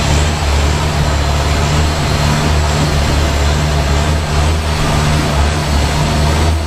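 Tour boat's engine running steadily while under way on a canal, a continuous low drone over a constant rush of noise.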